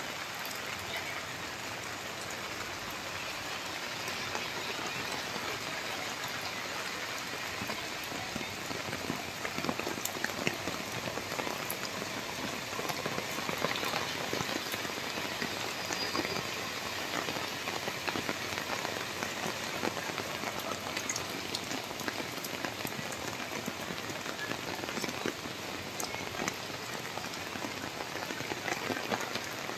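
Steady rain falling on wet paved ground: a dense, even hiss with fine patter of drops.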